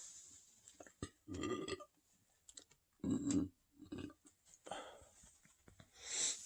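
A person belching from a very full stomach: two loud burps about a second and a half apart, with a few smaller ones after.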